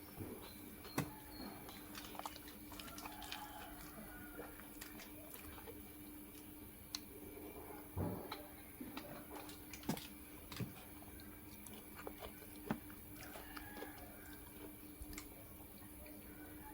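A person chewing and eating close to the microphone: soft, wet mouth sounds and scattered small clicks, with a few louder ones, over a faint steady hum.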